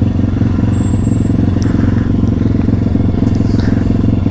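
Kayo pit bike's YX 140cc single-cylinder four-stroke engine running steadily at low revs, close to the microphone.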